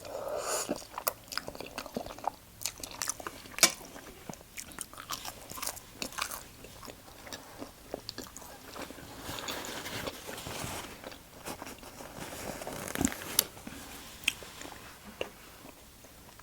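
Close-miked eating: a person biting and chewing food, with irregular sharp mouth clicks and crunches.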